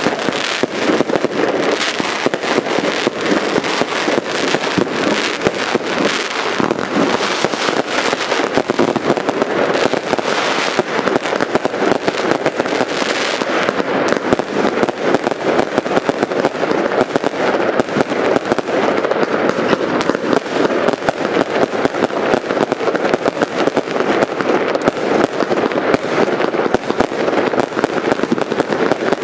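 Continuous dense barrage of fireworks and firecrackers: many overlapping bangs and crackles, with no pause.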